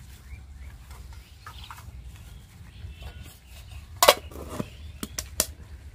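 Stainless steel tiffin box being closed: one sharp metallic clink about four seconds in, then three quicker clicks about a second later as the steel lid is fitted and pressed shut.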